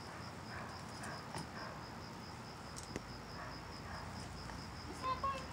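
A cricket chirping steadily: a high, rapidly pulsing note that repeats evenly, with a few faint clicks.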